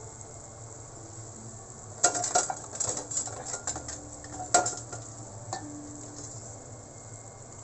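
Sauce bubbling at a boil in a stainless steel pot, then a metal ladle stirring it, clinking and scraping against the pot with two louder knocks, from about two seconds in until a little past halfway.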